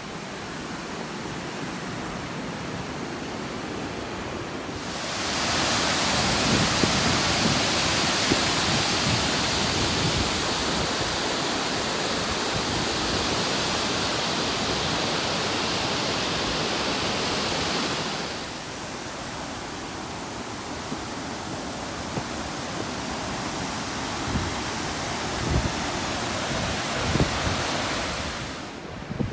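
Steady rushing of river water. About five seconds in it becomes louder and hissier, then falls back to a lower rush some thirteen seconds later.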